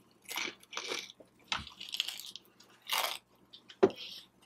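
Close-up mouth sounds of someone chewing a fried cheeseburger egg roll: several separate crunches of the crispy fried wrapper, with a sharp smack near the end as the loudest sound.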